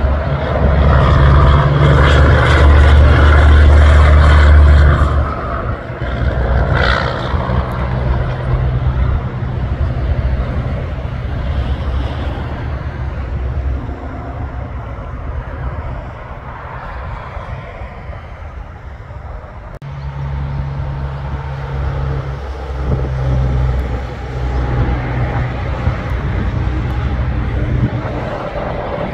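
Heavy trucks' diesel engines droning as they pass on the highway, with tyre and road noise. The low hum is loudest for the first few seconds, drops away, and swells again about twenty seconds in.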